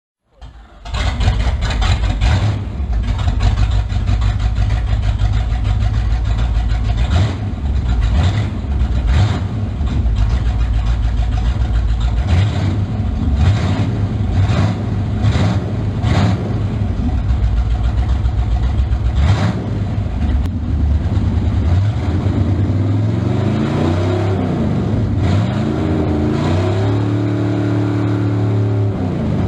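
Ford Galaxie Landau's V8 engine starting up a little under a second in, then running with a deep rumble. The throttle is blipped several times, and in the last third the revs rise and fall before holding at a higher speed.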